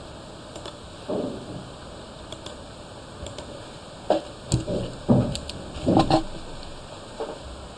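Computer mouse clicks, several in quick pairs, among louder thumps and rustling of handling close to the microphone, the loudest about five and six seconds in.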